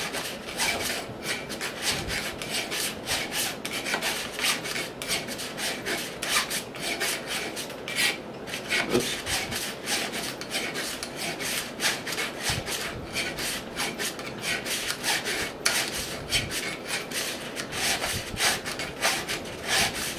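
Hand file rasping across a steel stepper motor shaft in quick, even strokes, filing a flat onto the shaft so that a pulley's set screw has something to bite into.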